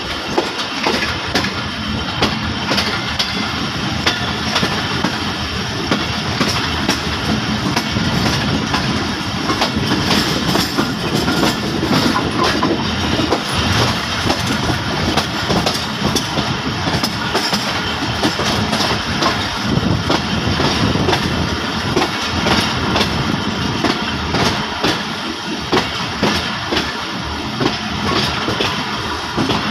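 Pakistan Railways passenger coach of the Jafar Express running slowly, heard from aboard at an open window: a steady rumble of wheels and carriage with scattered clicks and clacks as the wheels cross rail joints.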